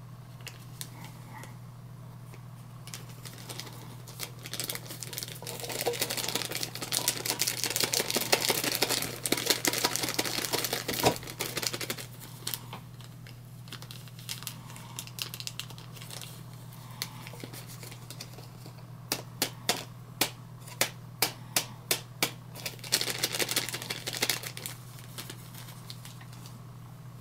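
Small clear plastic seed packet crinkling and rustling as it is handled to sprinkle tiny sundew seeds, with a run of sharp taps about two a second in the second half. A steady low hum runs underneath.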